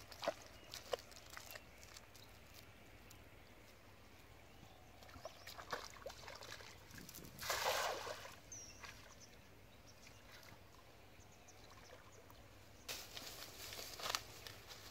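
A cast net lands on shallow canal water with a brief splash about halfway through, after a few sloshing steps wading through mud and water. Near the end, rustling and crunching as a calf walks through dry grass and fallen leaves.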